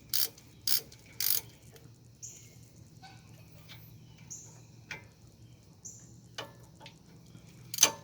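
Ratchet wrench clicking in several even back-strokes, about two a second, as brake bolts are tightened down. The strokes stop about a second and a half in, followed by scattered light clicks and taps of tools on metal and a sharper click near the end.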